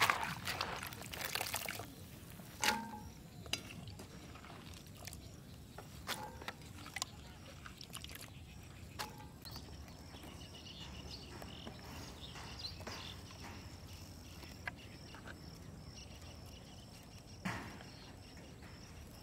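Hands swishing cut taro stems in a metal pot of water, splashing, for about two seconds. Then quieter outdoor ambience with scattered small clicks and knocks as twigs and a plastic bag are lit in a clay stove, with high, thin repeated chirping in the middle.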